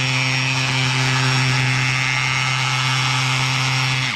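Cordless drill running steadily at constant speed, spinning a screw-in tent peg (Easy Drill Peg) clockwise through a 13 mm socket into crushed-stone gravel. The peg goes in very easily, and the drill stops abruptly near the end as the peg seats.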